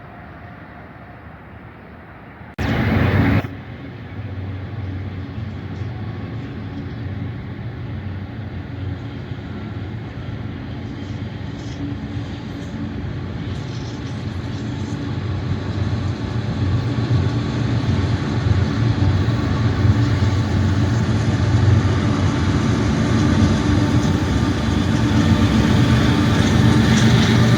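Diesel freight locomotives running with a steady low engine rumble that grows gradually louder as they draw near. A loud, brief burst of noise comes about two and a half seconds in.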